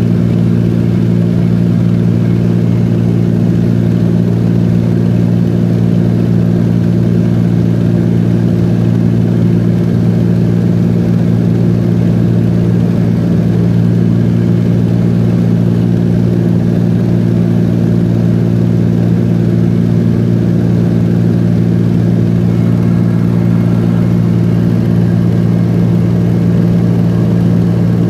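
Small high-wing plane's engine and propeller running steadily in cruise flight, heard from inside the cabin as a loud, even hum that holds one pitch throughout.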